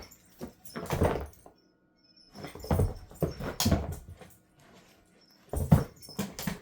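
A pet's noises in three irregular bouts of a second or two each, with short quiet gaps between.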